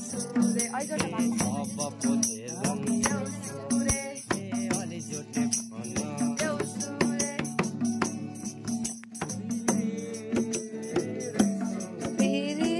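Music: singing over a fast, steady percussion beat.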